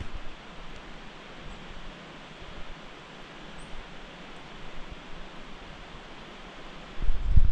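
Steady soft outdoor hiss over a rippling roadside puddle, with a short, louder low rumble on the microphone near the end.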